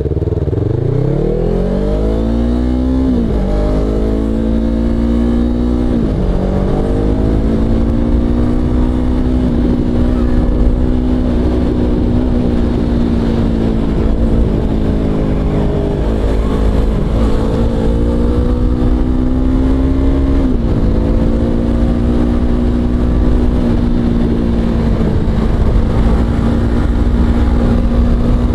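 Motorcycle engine accelerating, its pitch rising and dropping back at two gear changes in the first six seconds, then cruising at a steady pitch with a couple of brief dips. A low wind rumble sits on the microphone underneath.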